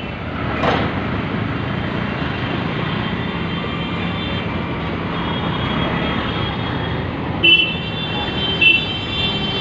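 Busy street traffic: a steady mix of engines and tyres, with two short, high-pitched vehicle horn toots near the end and a brief knock about half a second in.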